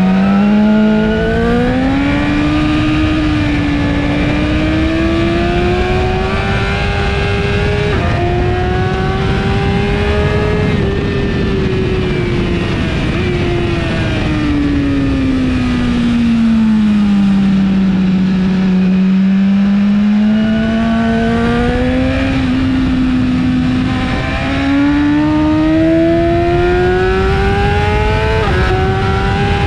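BMW S1000RR inline-four sport-bike engine with an Akrapovic exhaust, heard onboard at track speed over steady wind rush. The revs climb with brief dips at the gear changes, fall away slowly for several seconds as the rider rolls off, then climb again through more shifts near the end.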